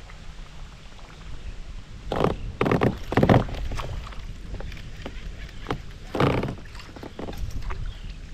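Water splashing and knocks of fishing gear against a kayak, in a cluster of short bursts about two to three and a half seconds in and again about six seconds in.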